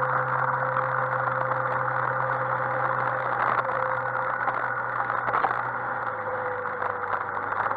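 Yamaha XMAX 125 scooter's single-cylinder four-stroke engine running steadily under way, under a steady rush of wind and road noise. The engine note drops slightly about six seconds in.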